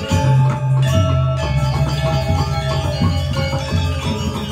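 Balinese gamelan playing: bronze metallophones ringing with many quick strikes over deep, sustained gong tones.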